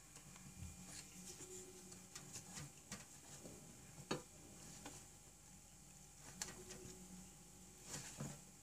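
Wooden spatula tapping and scraping in the cups of a nonstick muffin pan as it presses down a flaked oat and buckwheat mixture: faint, irregular taps and scrapes, the sharpest about four seconds in.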